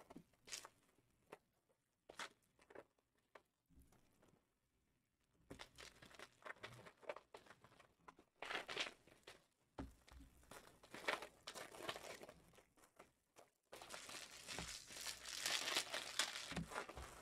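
Foil trading-card pack wrappers being torn open and crinkled in scattered faint bursts, with a busier stretch of crinkling near the end.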